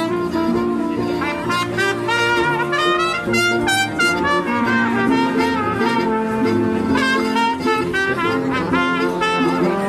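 Live band music with brass instruments playing together, several held and moving notes at once.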